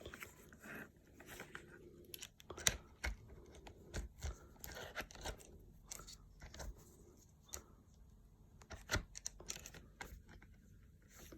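Quiet handling noise from a camera being fitted onto a ball head quick-release mount: scattered small clicks and knocks with light rustling between them.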